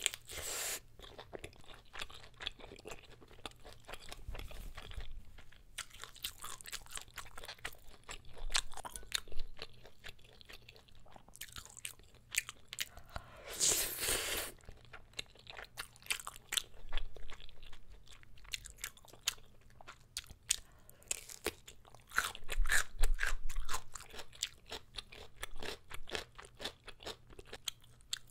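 Close-miked mukbang eating sounds: chewing a bite of kielbasa sausage, with many small wet clicks of the mouth. About halfway in comes a louder burst of slurping a spoonful of spicy black bean noodles (jjapaguri), followed by more chewing.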